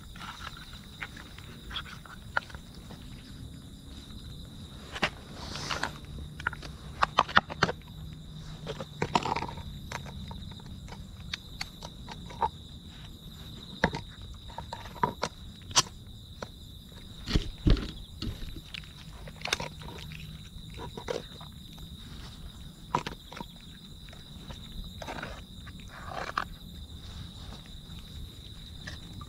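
Cats chewing and crunching food close by, with many short sharp clicks and one louder thump, over a steady high-pitched insect trill.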